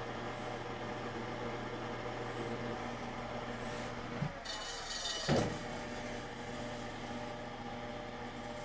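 Manual lathe running with a steady hum while power tapping a 5/16 thread into a steel part held in a hand-held tap chuck. Just after four seconds the running note changes with a short knock and about a second of high whine, then a heavier clunk, before the steady hum resumes.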